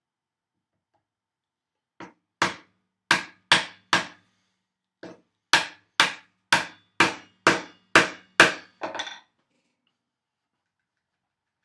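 Mallet striking a wooden-handled chisel, chopping a mortise into a thick wooden timber. About a dozen sharp knocks come at roughly two a second, starting about two seconds in, with a short pause partway.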